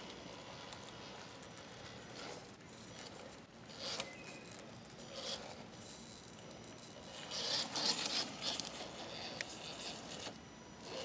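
Radio-controlled rock crawler's tyres and chassis scraping and knocking over wooden planks and dirt, with a few short bursts and a louder stretch of scraping a little past the middle.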